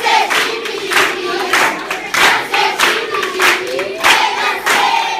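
A group singing together in chorus, with rhythmic hand clapping about twice a second.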